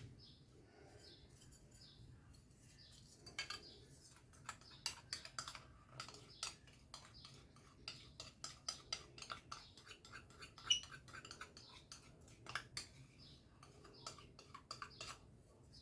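Faint, irregular light clicks and taps of a kitchen utensil against a mixing bowl while cornstarch is worked into cake batter.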